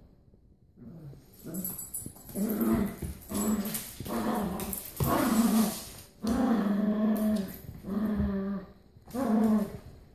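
Dogs growling in play while tugging at a toy, a string of low growls each lasting up to about a second, starting about a second and a half in.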